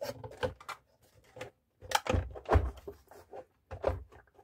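Irregular knocks and clatter of an induction cooker's glass top and plastic casing being handled and set in place, loudest about two seconds in.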